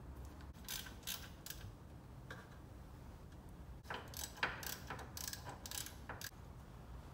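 Ratchet wrench clicking in short runs as the rear brake caliper's mounting bolts are run in on a BMW E30 325e, with metal tool clinks in between.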